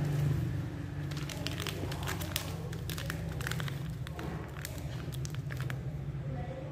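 Plastic snack packet crinkling and crackling as it is picked up and handled, a quick run of crackles for a few seconds, over a steady low hum.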